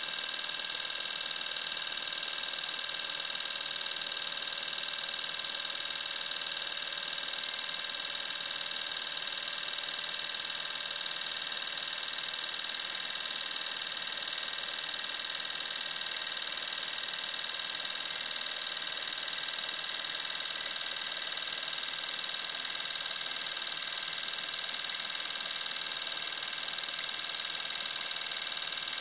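A set of four Nismo 555cc fuel injectors firing together on a flow-test bench, spraying into graduated cylinders. It makes a steady, high-pitched hiss that does not change.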